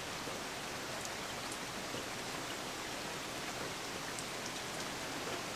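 Steady rain falling, an even hiss with the occasional faint patter of single drops.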